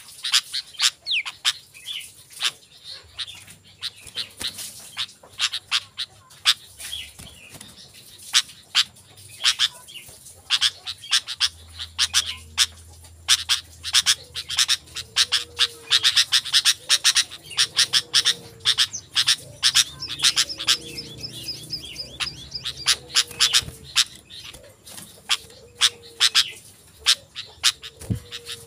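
Sooty-headed bulbuls calling busily: a dense run of short, sharp chattering calls in quick succession, thickest around the middle.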